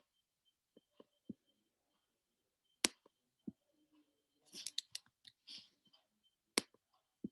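Computer mouse clicks while wiring a circuit in a logic simulator: a few sharp single clicks, the loudest two about four seconds apart, with scattered lighter ticks and a brief patch of scuffing near the middle.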